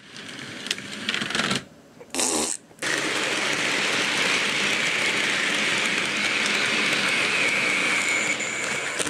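Model railway train running along the track: wheels clattering over the rails with a steady electric motor whine, steady from about three seconds in after a brief break.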